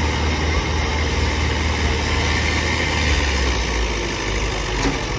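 Diesel engines of two HMT tractors, chained together in a tug-of-war, running hard under heavy load: a steady, loud, low engine drone.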